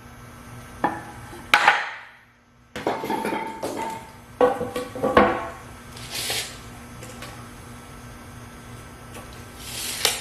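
Irregular knocks and clatter of lumber and hand tools being handled in a workshop, with a dense run of knocking a few seconds in and two short hissy bursts later.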